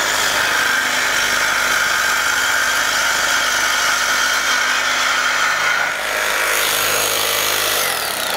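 Cordless Milwaukee Super Sawzall reciprocating saw with a Diablo carbide-tooth metal-cutting blade, cutting through a thick steel I-beam at full speed with a steady, loud cutting noise. The sound changes about six seconds in, and near the end the motor winds down with a falling whine as the saw comes out of the cut.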